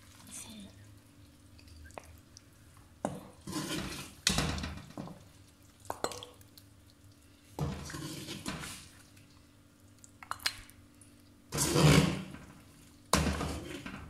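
Steel ladle scraping and clinking in a stainless-steel pot as mutton curry is scooped out and served into a plate: four separate scrapes with a few sharp clinks between them.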